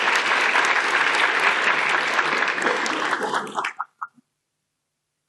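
Audience applauding, dying away into a few last claps about four seconds in, after which the sound cuts off to dead silence.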